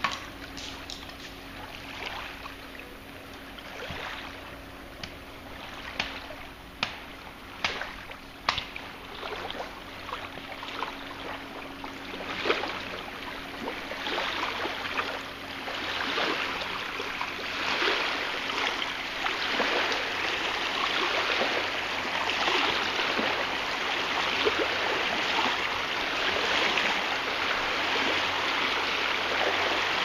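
Small waves lapping and splashing at a pebbly lakeshore, growing fuller and steadier from about halfway through. Scattered sharp clicks and taps in the first several seconds.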